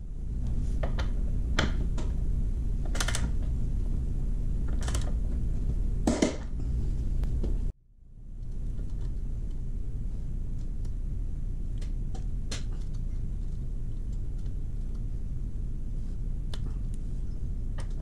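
Hand tool working the motorcycle's rear axle nut: several sharp clicks and short ratcheting strokes in the first few seconds, as the nut is torqued. Later come faint small metallic ticks as the cotter pin is fitted. A steady low rumble runs under everything.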